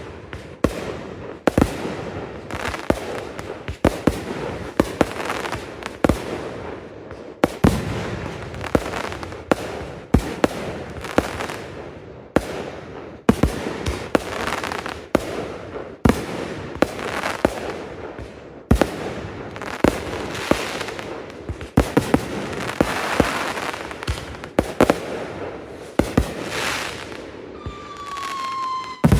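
Consumer fireworks going off in a show, with repeated sharp bangs, at times several a second, and crackling between the reports. A falling whistle starts near the end.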